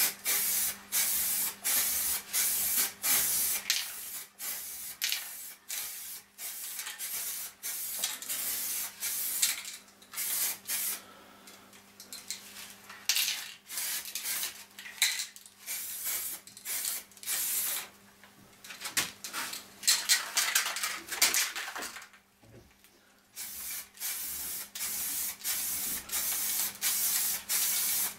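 Spray paint hissing out of a nozzle in short, rapid bursts, about two a second, with a brief pause about three quarters of the way through: the first coat of paint going onto the sundial's aluminium.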